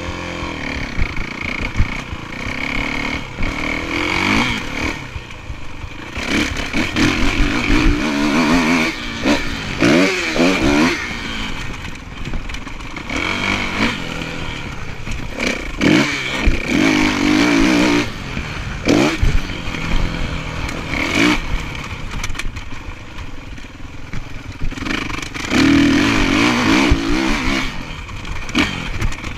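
Kawasaki KX450F motocross bike's four-stroke single-cylinder engine revving up and down repeatedly as it is ridden around a dirt track, heard from a camera strapped to the rider's chest.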